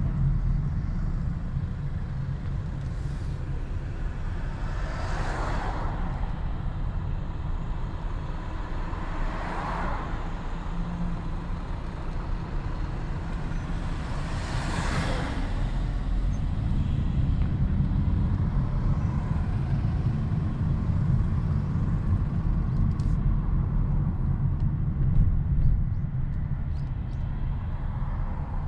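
A Kia K8's 2.5-litre four-cylinder petrol engine and its tyres making a steady low rumble while driving through town. Three times, about 5, 10 and 15 seconds in, a broad rushing sound swells and fades as other traffic goes by.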